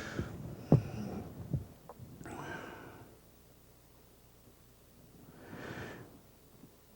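A man breathing close to a microphone: three soft breaths a few seconds apart, with a couple of faint clicks in the first two seconds.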